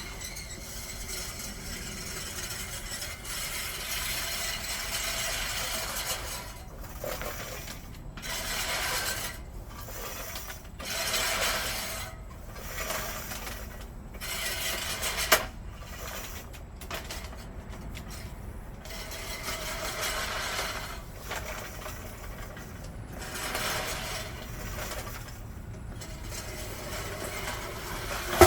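Manual push reel lawnmower cutting grass, its blades whirring in uneven swells with each push, with one sharp click about halfway through.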